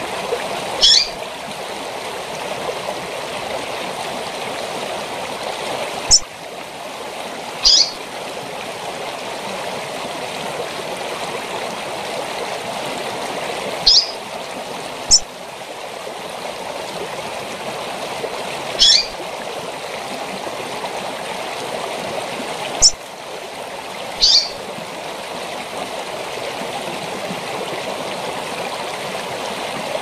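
Female double-collared seedeater (coleiro) giving short, high call notes every few seconds, about eight in all, some dropping in pitch, over the steady rush of a waterfall.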